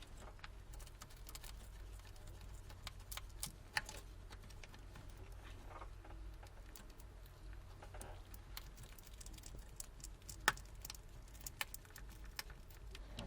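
Faint, scattered clicks and ticks of a pry tool working along the edge of a Samsung Galaxy Note 10.1 tablet, cutting the adhesive to lift the glued digitizer glass off the frame, with a sharper crack about ten seconds in, over a low steady hum.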